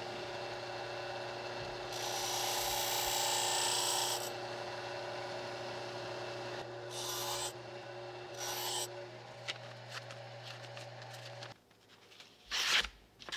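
Low-speed bench grinder running with a steady hum while a knife edge is held to its paper wheel, the blade hissing against the wheel in several strokes, the longest about two seconds in. Near the end the grinder sound stops and a sharpened blade slices through a thin piece of paper.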